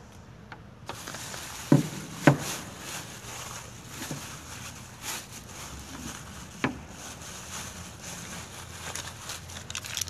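Rustling handling noise from a handheld phone being carried and moved. It sets in about a second in, with two sharp knocks close together about two seconds in and another near seven seconds.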